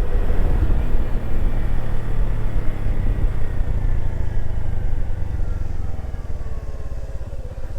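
Honda Super Cub's single-cylinder four-stroke engine running as the bike rides along, with heavy wind rumble on the microphone. The engine note falls gradually and the sound eases off toward the end as the bike slows.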